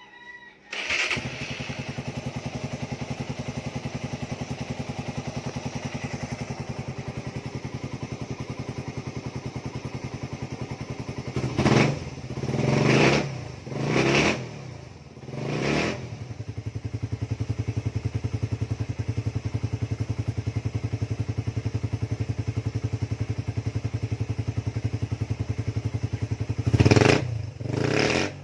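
Suzuki Raider 150's carburetted single-cylinder four-stroke, fitted with an aftermarket Apido exhaust pipe, starts about a second in and settles to a steady, fast-pulsing idle. In the middle come four quick throttle blips, then idle again, and one sharp rev near the end.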